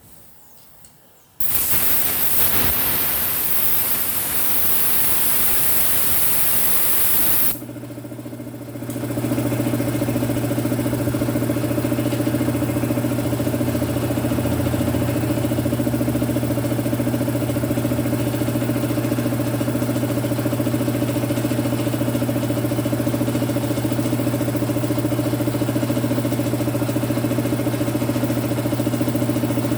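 Compressed air hissing out loudly for about six seconds and cutting off, then the belt-driven air compressor's electric motor starts about eight seconds in and runs with a steady hum.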